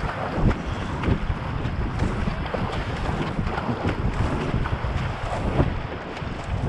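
Kayak paddle blades splashing into fast river water with each alternating stroke, over steady rushing water along the hull. Wind rumbles on the microphone throughout.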